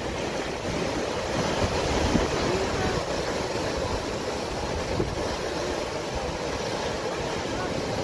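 Sea surf breaking and washing over a rocky shore: a steady rushing of water with small surges as the waves hit the rocks.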